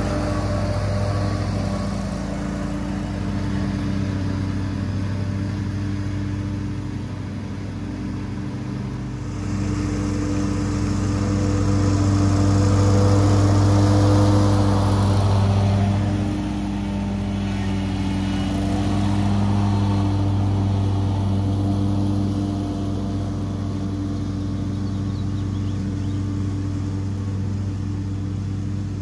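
Ferris commercial mower's engine running steadily under mowing load. It grows loudest as the mower passes close by about halfway through, then fades somewhat as it moves away.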